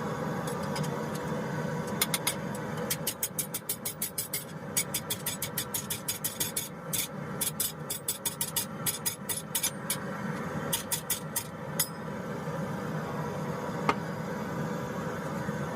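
A steady mechanical drone, with a run of rapid, light, sharp strikes or clicks, about four a second, from about two seconds in until about twelve seconds in.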